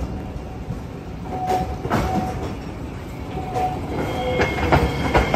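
Streetcar running on its rails: a steady low rumble with sharp clicks from the wheels, and a thin high squeal coming in about four seconds in.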